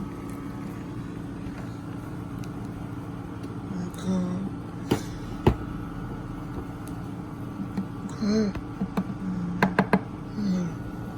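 Boat motor running with a steady hum. Scattered voices of other people come and go, and a few sharp clicks sound around the middle and again near the end.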